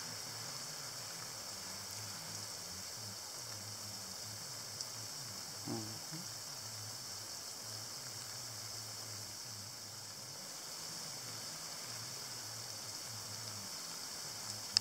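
Lawn sprinkler spraying water: a steady hiss, with a faint low hum beneath it.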